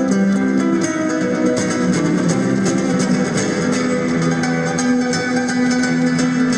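Solo nylon-string flamenco-style acoustic guitar: rapid plucked notes and quick strummed flourishes ringing over held bass notes.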